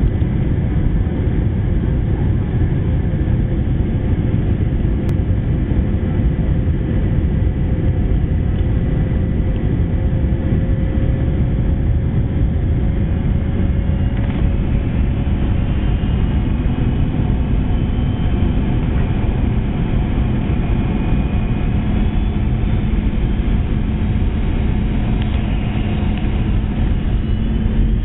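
Steady low cabin rumble of a Boeing 717-200 airliner on final approach, heard from inside the cabin: engine and airflow noise. Faint whining tones shift in pitch partway through.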